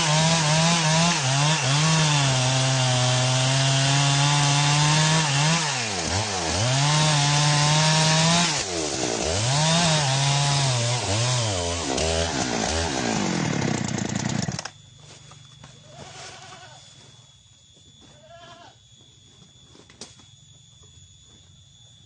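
Two-stroke chainsaw cutting wood, its engine pitch sagging under load in the cut and climbing back again several times. It cuts off suddenly about two-thirds of the way in, leaving only faint background sounds.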